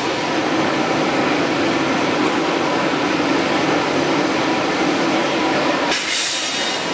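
Welded steel tube roll forming mill running: steady machine noise with a low hum. Near the end comes a brief high hiss with a thin whistle.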